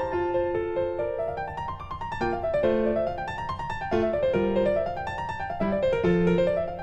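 Instrumental background music: a keyboard playing runs of notes that climb and fall, with a lower note line joining in about two seconds in.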